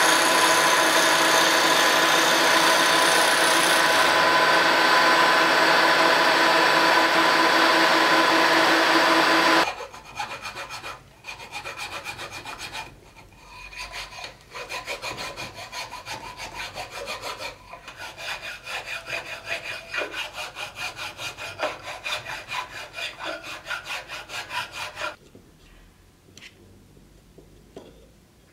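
A milling machine's end mill cutting a slot along a wooden strip, a loud steady machine whine that stops abruptly about ten seconds in. It is followed by a hand file rubbing back and forth in the groove of a wooden grip half, in repeated strokes with short pauses, and a few quiet handling sounds near the end.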